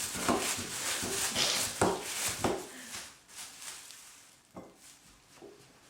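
Light clinks, knocks and rustling of things being handled, busy for about three seconds and then thinning to a few soft knocks.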